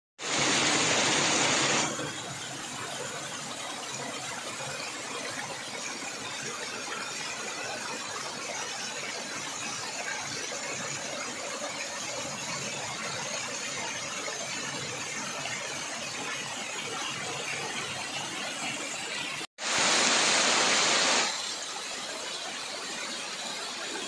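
Waterfall water pouring and splashing onto rocks: a steady rushing noise, louder and hissier for the first two seconds and again for about two seconds after a cut near twenty seconds in.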